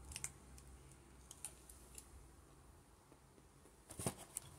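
Faint crunching of a chocolate-and-nut bar being chewed, a few scattered crunches in the first two seconds. About four seconds in comes a short cluster of louder clicks and a knock.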